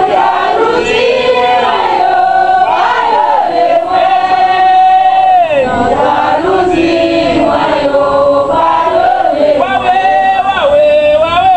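A crowd of worshippers singing a sacred chant together in Haitian Creole, voices holding long notes that slide down at the ends of phrases.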